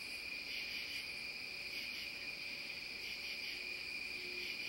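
Crickets chirping in a steady night-time chorus, a continuous high trilling.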